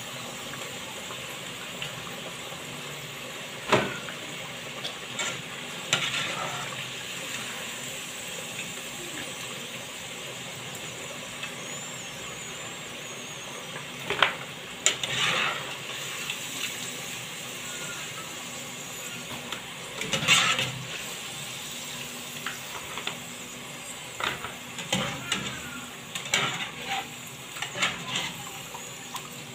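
Potato fries sizzling in hot cooking oil with a steady hiss, with sharp clinks and scrapes of a utensil against the pan now and then, more of them near the end.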